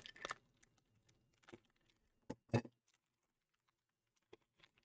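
A handful of short, soft clicks and rustles from a plastic-wrapped trading-card pack and loose cards being handled on a tabletop, the loudest about two and a half seconds in, with quiet between.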